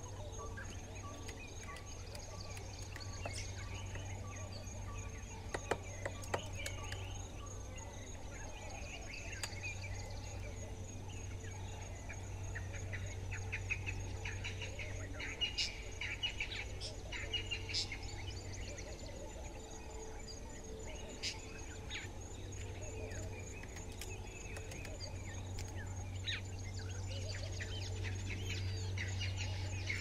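Dawn chorus: many birds calling and chirping over a steady high insect trill, with a steady low hum underneath.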